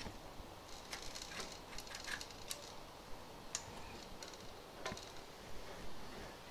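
Faint light clicks and rattles of an upside-down bottle and its bar optic dispenser being handled on the rack: a quick run of clicks about a second in, then single clicks further on.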